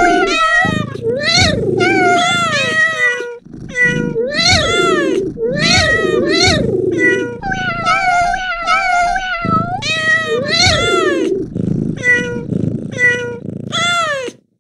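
Recorded house-cat meows from Google's "cat" search easter egg, one after another and often overlapping, each rising then falling in pitch. They pause briefly about three and a half seconds in and stop abruptly near the end.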